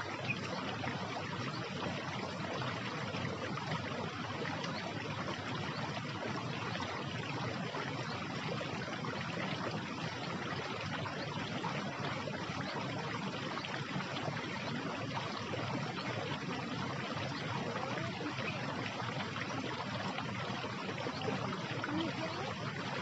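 Steady rushing of running water, even and unbroken.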